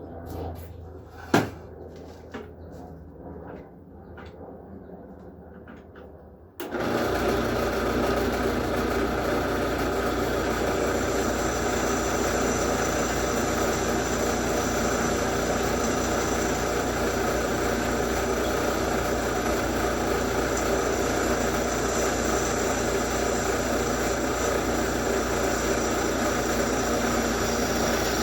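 A few light clicks and one sharp knock, then a drill press motor starts suddenly about six and a half seconds in and runs steadily while drilling a hole through a steel anchor plate.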